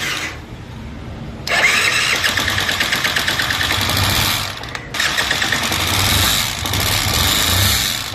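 Bajaj Discover motorcycle's single-cylinder four-stroke engine running with a fast top-end clatter from the cylinder head. It gets sharply louder about a second and a half in and dips briefly near five seconds. The noise comes from a rocker arm whose small needle-bearing pins have worked out, while the cam chain and tensioner are fine.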